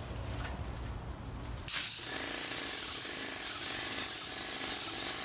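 Airless paint sprayer gun triggered about a second and a half in, spraying paint in a loud, steady hiss.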